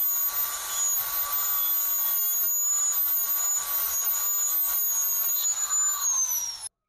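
Small electric angle grinder running with a steady high whine as it grinds weld slag off the welded steel teeth of a power-window regulator gear sector. About six seconds in its whine falls as it spins down, then the sound cuts off abruptly.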